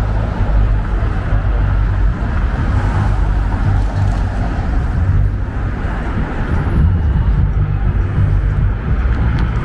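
City street traffic: cars driving past close by on a wide downtown avenue, a steady rumble of engines and tyres on the road.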